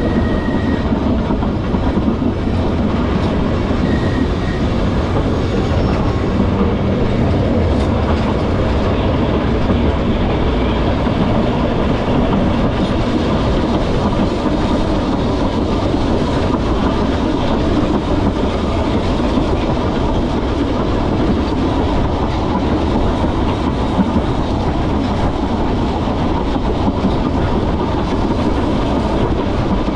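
Vintage electric tramcar of the Manx Electric Railway running along the narrow-gauge track, a steady rumble and rattle of wheels and car body.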